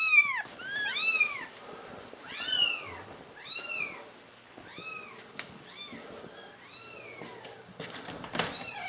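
Kittens meowing: a run of high, thin cries, each rising then falling in pitch, about one a second and growing fainter after the first few. A sharp knock near the end.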